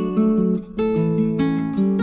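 Background music: acoustic guitar playing strummed and plucked chords at a steady pace.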